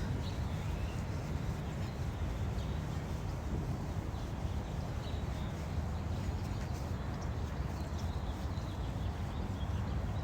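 Outdoor ambience: a steady low rumble with a few faint, short bird chirps here and there.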